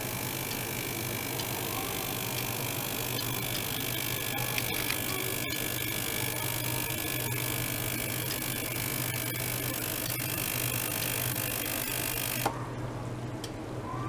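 Small liquid-circulation pump running with a steady low hum as it pushes water through tubing into an ultrasonic cleaning tank, over a steady high hiss with faint crackles from the ultrasonic bath. About twelve and a half seconds in, the high hiss cuts off suddenly while the pump hum and water flow go on.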